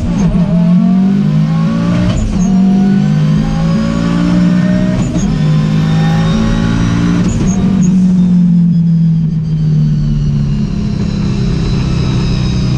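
Turbocharged engine of an Audi Quattro S1 E2 replica Group B rally car, heard from inside the cabin, pulling hard through the gears. The pitch climbs and then drops sharply at upshifts about two, five and seven seconds in, then holds a steadier note.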